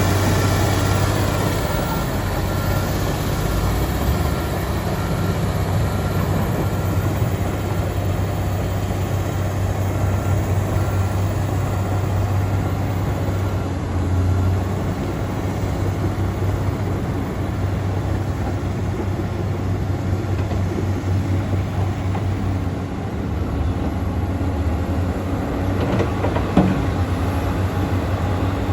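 Komatsu D85EX crawler bulldozer's diesel engine running steadily with a low, even drone, with one sharp knock near the end.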